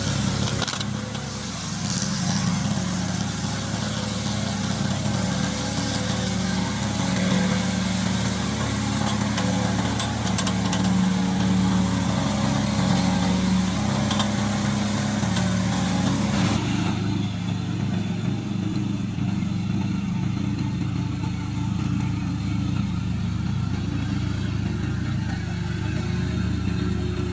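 Engine of a remote control tracked lawn mower running steadily. A hissing upper layer drops away about two-thirds of the way through while the engine note carries on.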